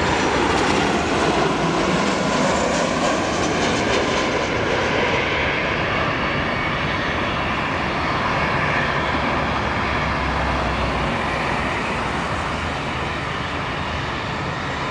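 Boeing 737 airliner's twin jet engines running as it flies low over on final approach. The engine whine falls in pitch as it passes, then settles into a steady jet roar as it goes on to the runway.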